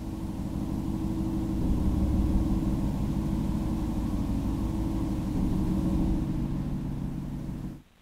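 Mutable Instruments Clouds granular processor, fully wet, putting out a dense, rumbling drone of many layered low tones that cuts off suddenly near the end.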